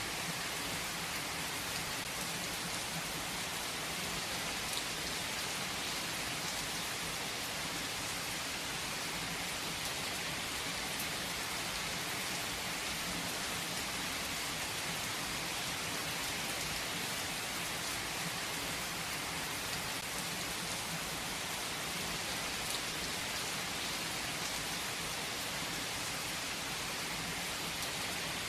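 Steady rain falling, an even hiss of drops on surfaces that holds constant without letting up.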